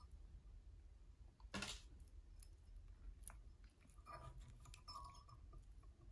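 Near silence with faint ticks and rustles of fly-tying work: a bobbin winding thread onto a hook clamped in a vise. There is one slightly louder click about a second and a half in.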